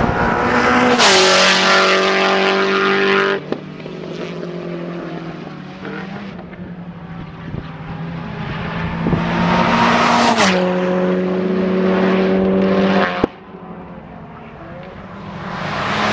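Sil80 (Nissan 180SX with a Silvia front) race car's engine at high revs, passing at speed several times. Each pass swells loud, drops in pitch as the car goes by, then cuts off suddenly. The loudest passes come about a second in and about ten seconds in, with another building near the end.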